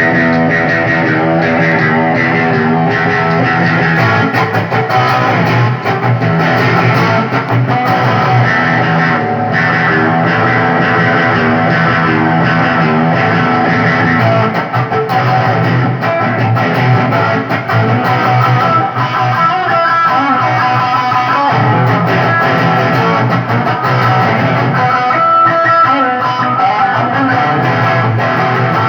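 Electric guitar played through a Zoom 505 II multi-effects pedal, with continuous single notes and chords and no pauses.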